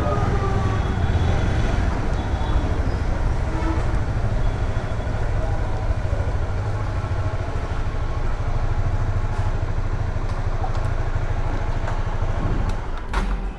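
Vehicle engines running in street traffic: a steady low rumble that drops off abruptly near the end.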